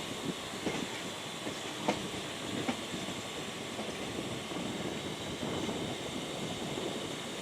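ICF-built EMU local train running along the track, a steady rumbling rattle of the moving coach with a few sharp clicks in the first three seconds.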